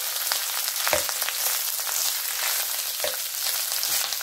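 Cooked rice sizzling in hot sunflower oil in a pan as it is stirred with a wooden spatula: a steady frying hiss, with a few light knocks of the spatula against the pan.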